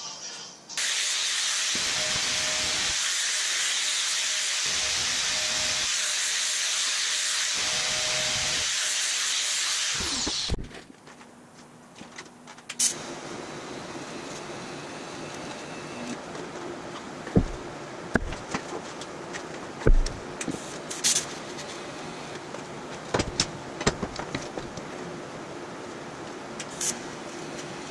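TIG welding on steel hairpin tubing: a loud, even hiss for the first ten seconds, then, after a short lull, a quieter steady hiss with a faint hum and scattered sharp clicks and taps.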